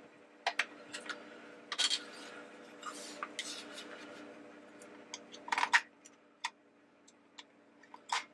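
Sharp plastic clicks and taps as the base of a battery-powered animated teacup ornament is handled: the battery-compartment cover is unclipped and the batteries are pried out. A faint steady hum runs underneath.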